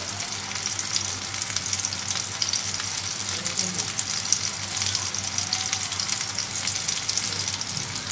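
Potato tikkis shallow-frying in hot oil over a low gas flame: a steady sizzle dotted with fine, rapid crackles.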